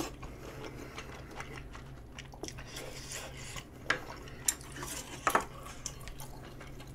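A person chewing a mouthful of tteokbokki (chewy rice cakes in spicy sauce), with soft wet mouth sounds and a few sharp clicks or smacks about four to five seconds in, over a low steady hum.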